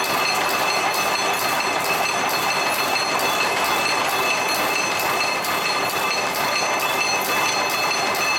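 Barbed wire machine running at full speed: a steady, dense mechanical clatter with a fast, even beat and a steady high whine over it.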